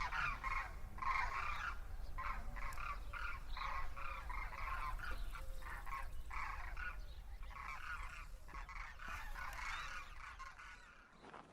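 A flock of demoiselle cranes calling together: many short calls overlapping and repeating in quick runs, thinning out and fading away near the end.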